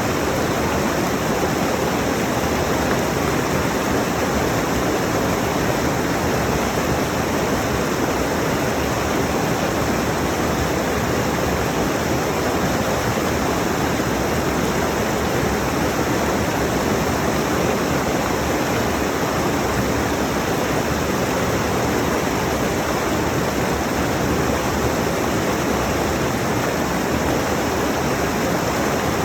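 Rushing mountain stream: water flowing over rocks in a steady, even rush.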